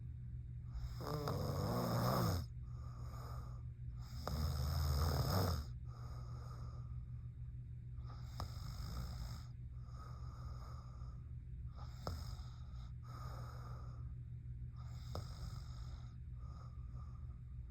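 A sleeping woman snoring: two loud, drawn-out snores, one about a second in and one about four seconds in, then quieter, shorter breaths every second or two.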